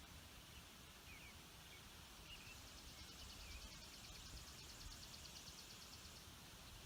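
Faint outdoor ambience: a few short, faint bird chirps, and a rapid, even high trill that starts about two seconds in and stops shortly before the end, over a low rumble.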